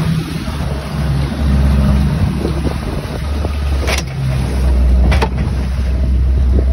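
Boat engine running steadily at speed with a low drone, water rushing and wind buffeting the microphone. Two sharp knocks come about four and five seconds in.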